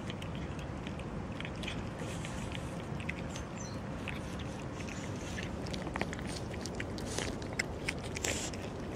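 Cats eating wet food from a plastic tub: irregular small wet clicks and smacks of chewing, busier in the last few seconds. Underneath is a steady low background rumble.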